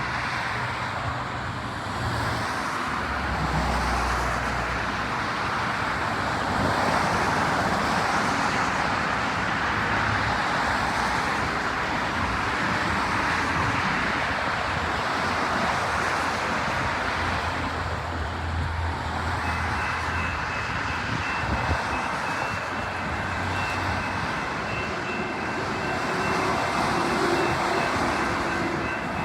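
Diesel-hauled Metra commuter train arriving at the station: a steady rumble of wheels on rail with a low engine drone. A steady high-pitched squeal joins about twenty seconds in.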